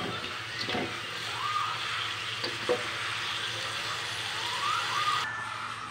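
Fish pieces in a thick chili-turmeric sauce sizzling in a metal wok while a spatula stirs them, with a few light knocks and scrapes of the spatula against the pan. The sizzling cuts off sharply near the end.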